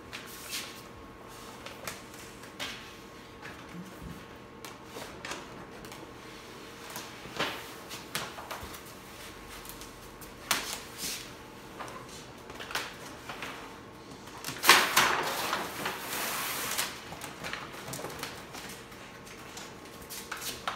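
Sheet of vinyl wrap film being handled and laid onto a car door: scattered crinkles and rustles of the film and its paper backing, with a longer, louder stretch of rustling about fifteen seconds in.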